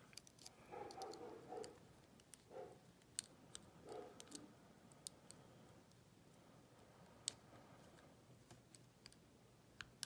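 Faint, irregular metallic clicks and scrapes of a lock pick and tension tool working the pins inside the keyway of a Master Lock four-pin gun lock.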